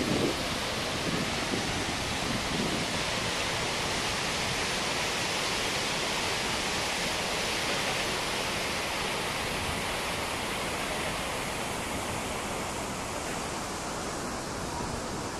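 Steady rushing roar of a large waterfall, muddy high water pouring over a wide rock ledge into the pool below. It grows a little fainter near the end.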